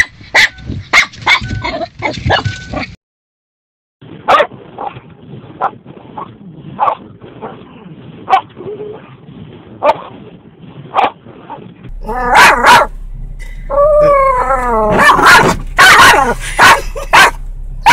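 Dogs barking and yipping in short sharp calls at moving windshield wipers, with high wavering whines in the second half. There is a brief silence at a cut about three seconds in.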